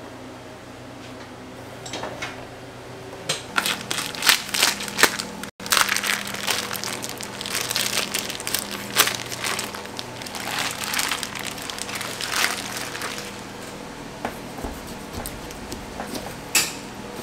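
Clear plastic wrap crinkling and crackling as it is handled and pulled away from a raw beef cut. The crackling comes in dense runs for most of the first two-thirds, then dies down to a quiet background with an occasional click.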